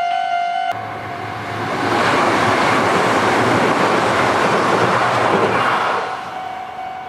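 Kintetsu electric train passing through a level crossing: a rush of wheel and rail noise with a low hum swells for several seconds and then fades. The crossing's melodic warning chime sounds at the start, cuts off abruptly under a second in, and returns faintly as the train dies away.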